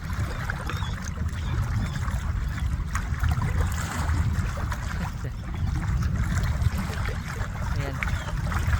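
Shallow seawater sloshing and trickling among rocks, over a steady low rumble.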